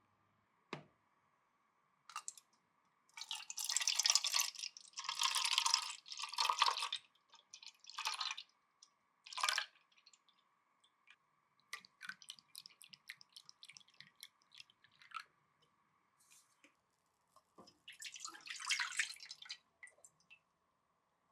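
Kitchen food-preparation sounds: several short hissing, rustling bursts with light clicks and taps between them.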